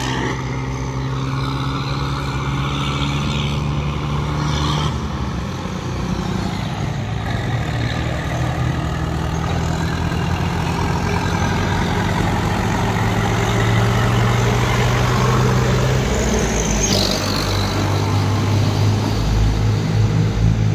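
Heavy 80 hp Hindustan tractor diesel engines running steadily on the road while hauling sugarcane trailers, the engine note growing louder as they draw near. A short high-pitched squeal comes late on.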